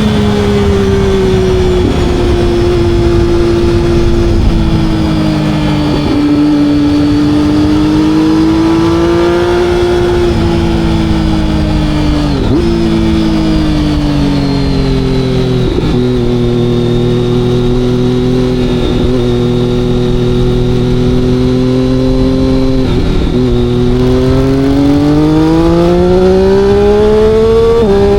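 Motorcycle engine running loud under way, its note sinking slowly, holding low and then climbing again near the end, broken by brief dips every few seconds.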